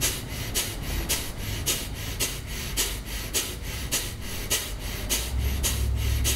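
Kapalabhati breathing: a man's sharp, forceful exhales through the nose, about three a second in a steady rhythm.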